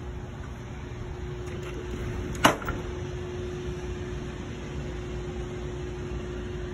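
Steady mechanical hum with one constant low tone inside a yacht's cabin, and a single sharp knock about two and a half seconds in.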